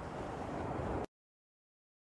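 About a second of low, rushing noise on a wired microphone, getting slightly louder. Then the sound cuts off abruptly to silence as the recording ends.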